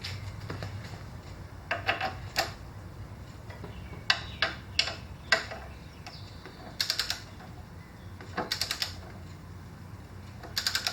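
Ratcheting torque wrench tightening a scooter's front axle nut to 44 ft-lb. Short runs of rapid ratchet clicks come every second or two as the handle swings back between pulls.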